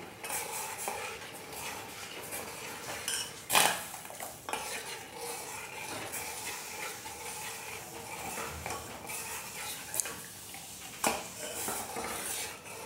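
A metal spoon stirring custard-thickened milk in a stainless steel pot, scraping steadily against the pot's bottom and sides, with a few sharper clinks of spoon on pot along the way.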